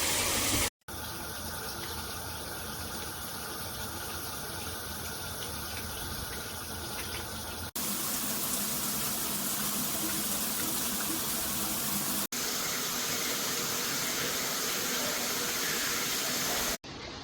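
Shower water spraying from a shower head in a steady hiss, in several stretches that cut off abruptly and start again.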